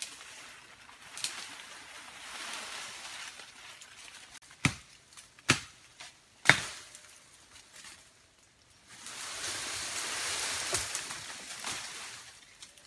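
Leaves and brush rustling as a person pushes through dense undergrowth, with three sharp cracks about a second apart around the middle, like sticks snapping. The rustling is loudest near the end.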